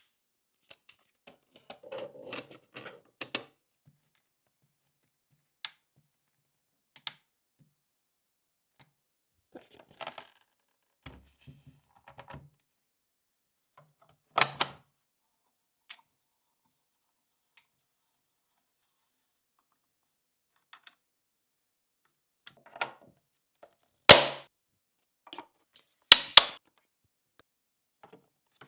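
Hands fitting PC parts into a 3D-printed case: scattered light clicks, taps and rustles, with a sharp knock about halfway through and two louder knocks near the end.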